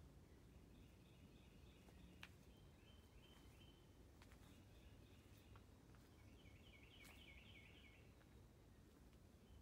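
Faint birdsong in a quiet forest: a bird repeating short chirped notes in quick series, in phrases about a second or two long, several times over. A low, even background hiss lies underneath, with a couple of faint clicks.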